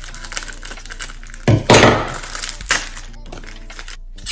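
Plastic phone-case packaging being handled and opened, with a sharp crack and crinkle about a second and a half in and a shorter snap about a second later. Faint background music runs underneath.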